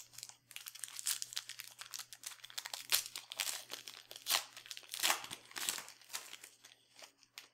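Crinkling and crackling of a trading-card pack wrapper being torn open and handled, in quick irregular crackles.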